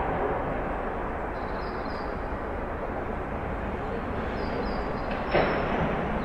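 Backyard outdoor ambience: a steady rumbling background noise with brief high chirping notes twice. A single sharp knock comes near the end.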